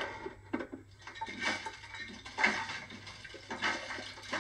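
Kitchen clatter from rummaging in a freezer: a handful of irregular knocks and clinks of dishes and frozen items being handled.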